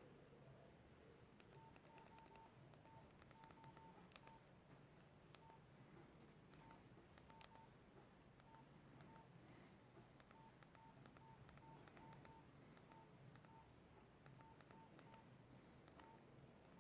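Nokia 5130 XpressMusic keypad tones: short, faint beeps of one pitch at uneven intervals, a few each second, with light key clicks as the buttons are pressed.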